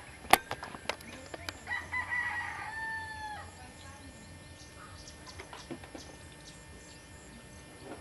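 A rooster crows once, a single long call lasting nearly two seconds that begins a little under two seconds in. Several sharp knocks come in the first second and a half, the loudest just after the start.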